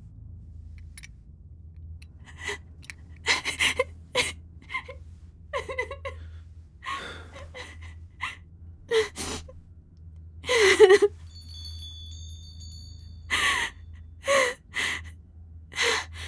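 A woman crying in short, uneven gasping sobs. A few faint high bell-like tones sound about twelve seconds in, over a low steady hum.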